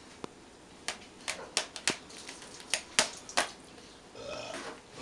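A dog chewing and crunching on an object, a quick run of sharp cracking crunches. A brief pitched sound comes near the end.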